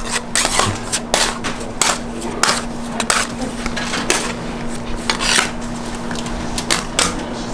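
Metal candy scraper knocking and scraping on a marble slab and its steel edge bars while hot molasses candy is folded over: a run of irregular sharp clicks and a few short scrapes, over a steady low hum.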